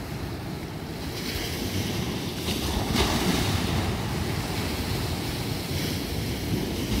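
Sea waves breaking and washing in among shoreline rocks, swelling from about a second in and loudest around three seconds, with wind rumbling on the microphone.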